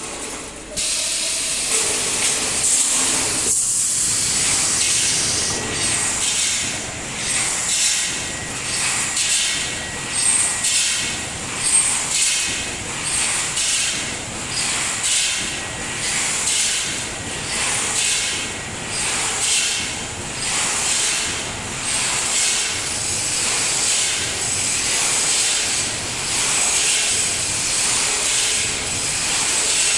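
Automatic roll wire mesh welding machine running, a loud hissing noise that pulses about once a second with its welding cycles.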